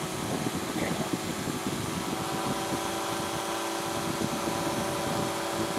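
Powered parachute engine running steadily in flight, a continuous drone with several held tones, over a rough low rumble.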